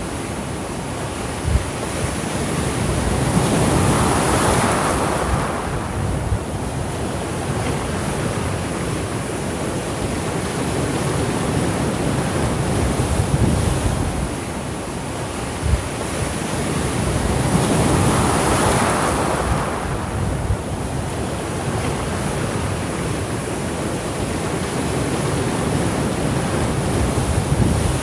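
Gentle sea waves washing onto a shore, the surf swelling twice about fourteen seconds apart, with wind buffeting the microphone.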